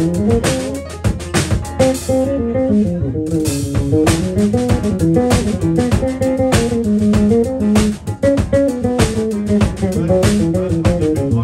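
Live funk jam: an electric bass guitar plays a moving melodic line over a drum kit groove. The drums drop out for about a second around two seconds in.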